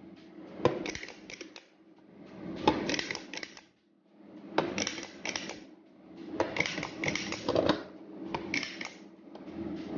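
Stainless-steel cookie press clicking as it is pumped twice for each cookie, with the press knocking on a metal baking tray as cookies are set down. Short groups of clicks and clatter come about every two seconds, five times.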